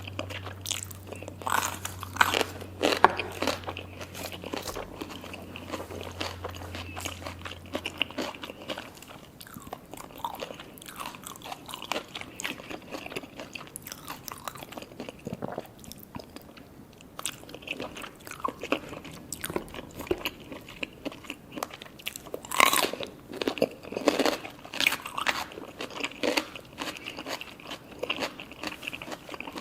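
Close-up eating sounds from sushi hand-roll cones: repeated bites and crunching with wet chewing, in irregular bursts. The crunch comes from the seaweed wrap of the cones.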